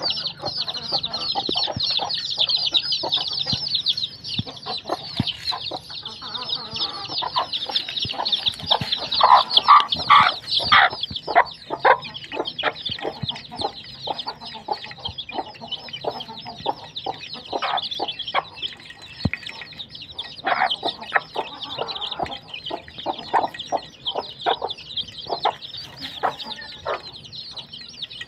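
Chicks peeping without pause in high, rapid chirps while they peck at mash in a steel bowl, their beaks tapping on the metal. A hen clucks among them, loudest about a third of the way in.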